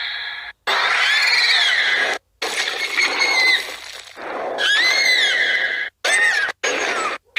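Mothra's creature cries, the 2019 film version: a run of about four separate high, warbling calls that arch up and down in pitch, each cut off abruptly.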